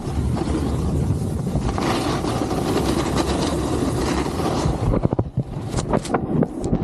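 Wind buffeting the camera microphone along with a snowboard's base and edges scraping over groomed snow as it slides downhill. From about five seconds in the steady rush drops and gives way to several sharp knocks and rustles as a gloved hand handles the camera.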